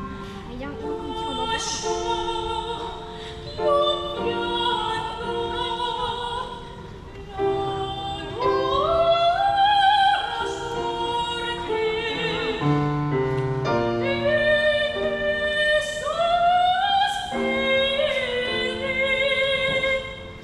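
A high female voice singing in an operatic style, holding long notes and sliding upward between them several times.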